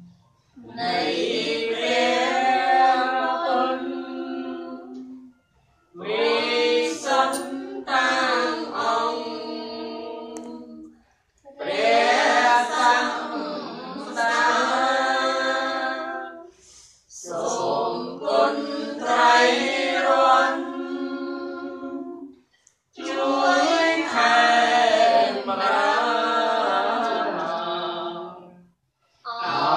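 A group of voices chanting Buddhist devotions in unison, in phrases of about five seconds with short pauses for breath between them.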